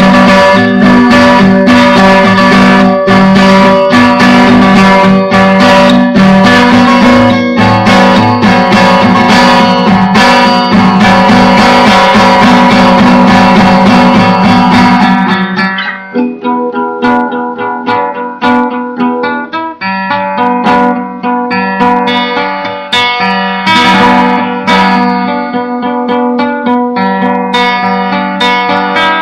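Guitar improvisation: dense, loud strumming for the first half, then about halfway through it drops to quieter, separately picked notes. The recording has very bad sound quality.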